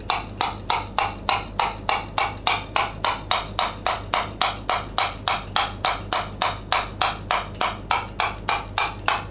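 A small hand-held metal object repeatedly hammering the top end of a steel ruler that is stuck through a pear: short, sharp, evenly spaced knocks, about three and a half a second. Each blow drives the ruler further down through the pear.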